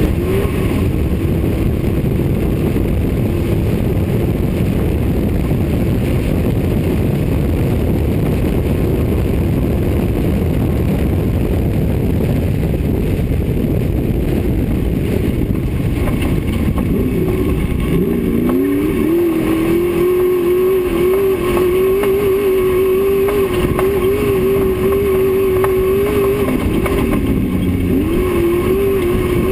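Off-road race car driving fast on a dirt course, heard from the car itself: engine running hard under a dense rumble of tyres, suspension and wind. In the second half a steady engine note comes through, dropping and climbing back twice as the driver lifts and gets back on the throttle.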